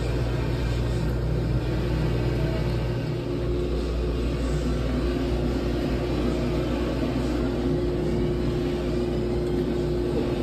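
Steady low rumble and hum of a shop's background noise, with no distinct events standing out.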